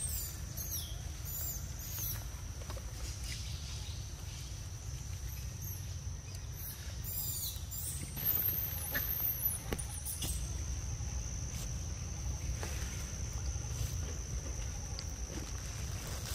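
Small birds chirping in short downward-sweeping calls, with a high warbling call about eight seconds in, over a steady high whine and a low rumble.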